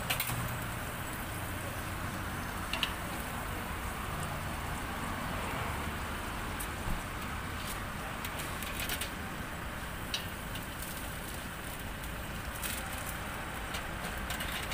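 Hot oil sizzling steadily in a pot as meatballs and sausages deep-fry, with a few sharp clicks of metal tongs against the pot and the wire rack.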